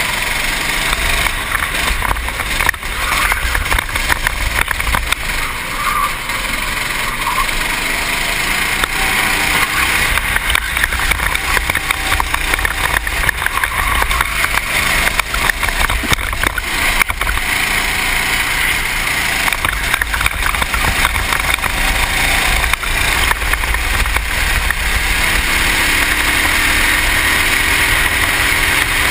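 Racing kart engine running under race load through corners, mixed with steady wind rush on a helmet-mounted microphone; the engine note climbs near the end as the kart accelerates onto a straight.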